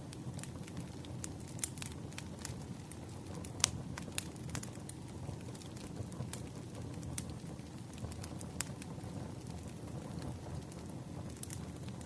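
Burning firewood crackling: irregular sharp pops and snaps over a low, steady rumble of the fire, with one louder pop about three and a half seconds in.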